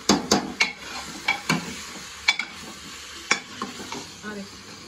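Steel spoon stirring chicken curry in an open aluminium pressure cooker, clinking and scraping against the pot, over a steady sizzle of the frying masala. A quick run of strikes at the start gives way to a few single knocks.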